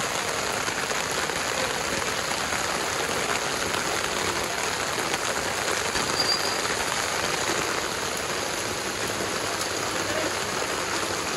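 Heavy rain pouring steadily onto a paved street and sidewalk, an even, unbroken hiss.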